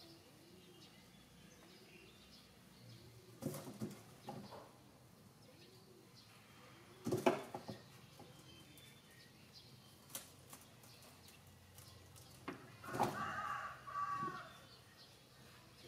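A few brief rustles and knocks from handling a baby monkey in cloth clothes, the loudest about seven seconds in, over a quiet background. About thirteen seconds in comes a short, wavering squeak-like sound lasting about a second.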